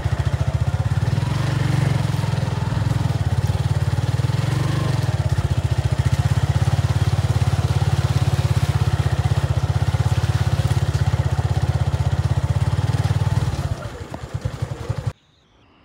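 Motorcycle engine running steadily with a fast, even pulsing beat, faltering unevenly near the end before the sound cuts off abruptly.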